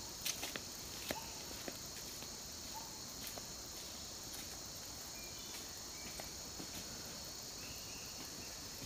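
Steady high-pitched chorus of forest insects. A few footsteps on the dirt path are heard in the first second or two, and a few brief high chirps come near the middle.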